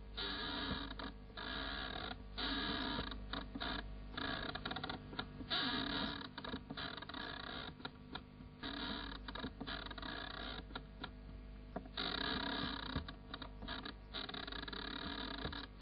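Crackling, rasping noise that comes and goes in irregular stretches with short gaps, over a steady low hum, from an old film's soundtrack.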